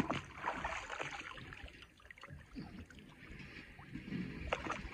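A raw chicken being washed by hand in river water: irregular splashing and sloshing over the steady flow of the stream.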